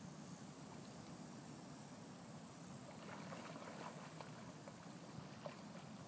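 Faint water splashing and lapping from a dog wading in a shallow river, a few small splashes in the second half, over a steady high hiss.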